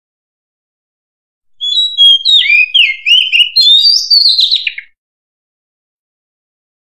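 Oriental magpie-robin singing one phrase of clear whistled notes that slide up and down in pitch, ending in a few quick falling notes. The phrase starts about a second and a half in and lasts about three and a half seconds.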